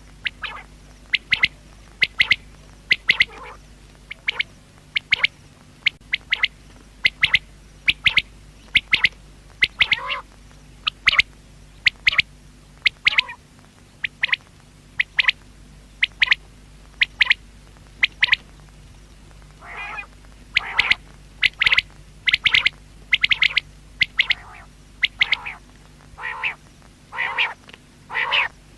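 Common quail calling: short, sharp notes repeated in quick groups about once a second. In the last third the calls turn lower and rougher.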